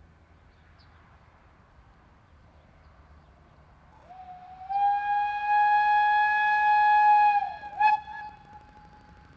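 Steam locomotive whistle of the Bavarian S 3/6 class express engine: one long blast about four seconds in that slides up in pitch as it opens and then holds a single steady tone for about three seconds. It dips, gives a short second toot near the end, and fades away faintly.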